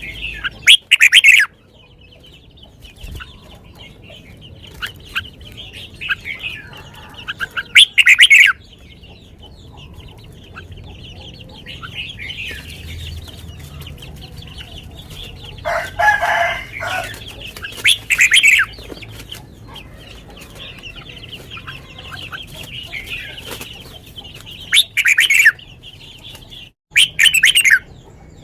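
Red-whiskered bulbul singing loud, short phrases about six times, several seconds apart, over a steady background twittering of birds.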